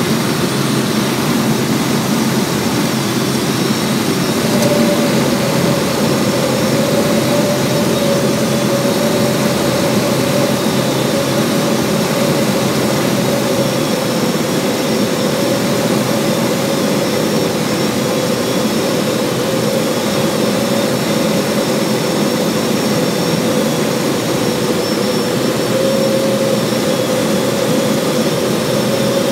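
Light high-wing airplane's engine and propeller running steadily in flight, heard from inside the cabin; a steady higher hum joins about five seconds in.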